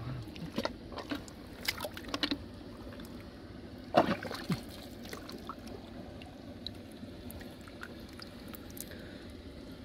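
Hands splashing and sloshing in shallow muddy water and squelching through wet mud while digging for freshwater clams. A run of short splashes comes in the first couple of seconds, the loudest splash about four seconds in, then quieter squelches.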